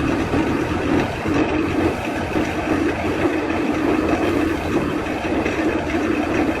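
A machine running steadily with a constant hum, unchanged throughout.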